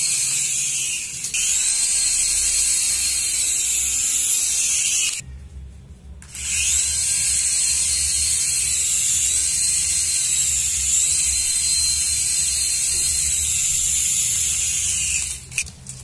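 Small toy RC helicopter in flight, its tiny electric motors and rotors giving a high-pitched whine whose pitch wavers as the throttle changes. The whine cuts out for about a second a third of the way in, then resumes and stops shortly before the end. The helicopter is flying with its rotor blades refitted in their marked A1 and B1 positions, the fix for a toy helicopter that won't fly.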